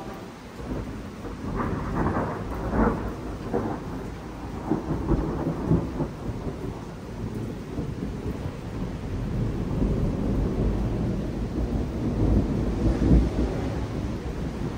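Thunder rumbling over steady rain, with several sharper cracks of thunder, the strongest near the end.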